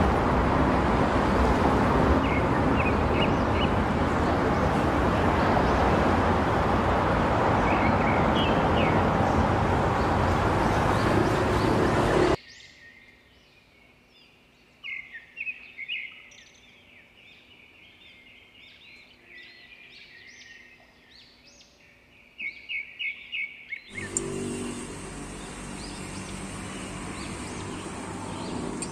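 Outdoor ambience in three abrupt cuts: first a loud steady rush of noise with birds chirping over it, then, cutting off suddenly about twelve seconds in, bird chirps and short trills alone, and from about twenty-four seconds in a steadier, quieter hum of noise with a thin high insect whine.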